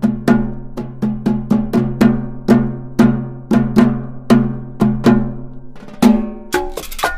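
Instrumental music of pitched drum strokes in a steady rhythm, about two to three a second, each note ringing out and fading. About six seconds in it turns into a faster, brighter pattern.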